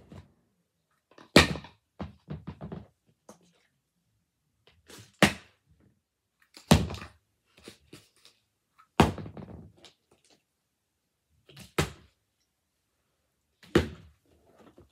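A series of hard thuds as a plastic water bottle and a plastic tub land on a wooden board, spaced a few seconds apart. One early landing is followed by a quick run of smaller bouncing knocks.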